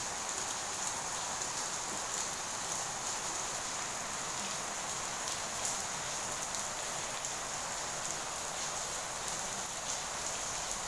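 Steady rain-like hiss with faint scattered ticks, strongest high in pitch.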